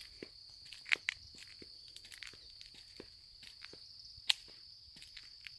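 Footsteps on a paved path, irregular soft steps with two sharper clicks, about a second in and about four seconds in. A steady high-pitched insect trill runs behind them.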